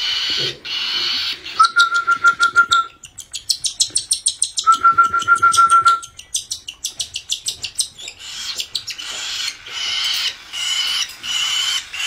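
Parrot chick begging to be fed, with repeated raspy calls. In the middle it takes formula from a spoon: a run of rapid ticking, about eight a second, with a thin steady whine twice. Then the raspy begging calls return near the end.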